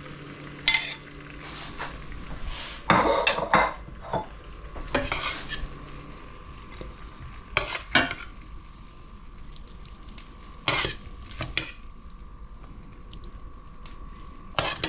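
A cooking utensil scraping and knocking against a pan in short, separate strokes about a second or two apart, over a steady background hum.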